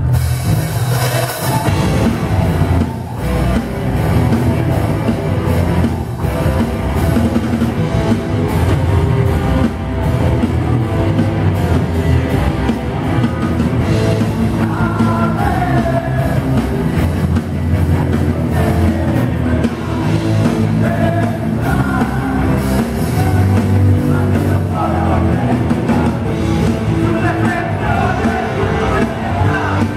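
Rock band playing live: electric guitar and drum kit with the full band coming in at the start, and a lead vocal singing over it from about halfway through.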